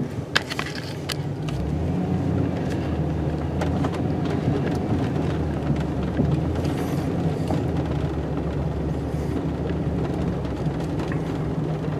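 Plow truck's engine running under load as it reverses, back-dragging snow with the plow blade. The engine note rises about a second and a half in, and a few sharp clicks come near the start.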